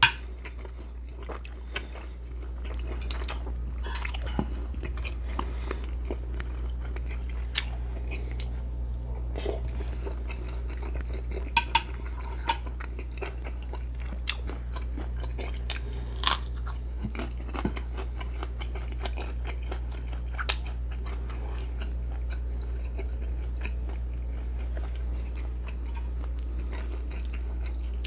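A person chewing and eating pinakbet, a pork and vegetable stew, close to the microphone, with occasional sharp clicks.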